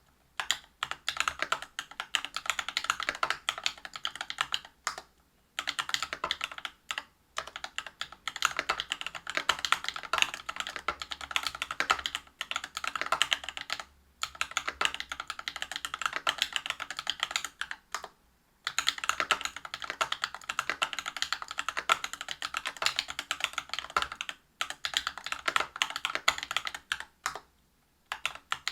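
Whale 75 mechanical keyboard with a brass plate, Cobalt POM linear switches lubed with Krytox 205g0 and PBT keycaps, being typed on. Quick runs of keystrokes are broken by short pauses every few seconds.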